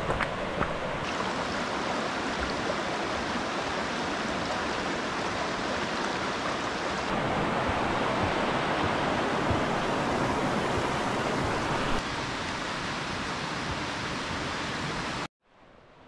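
Rocky mountain stream rushing over boulders, a steady dense wash of water. It cuts off suddenly near the end and returns much fainter.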